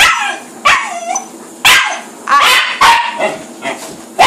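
Border Terrier barking in excitement: a string of about six sharp, loud barks, some drawn out with a falling, whine-like pitch.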